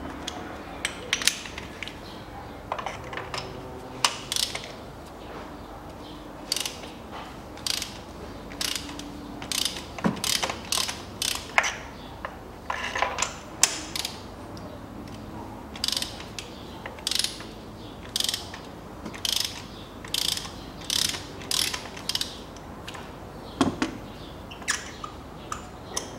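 Ratchet wrench on a spark plug socket clicking in short runs, about one a second, as it is swung back and forth to unscrew a spark plug. Two duller knocks come about ten seconds in and near the end.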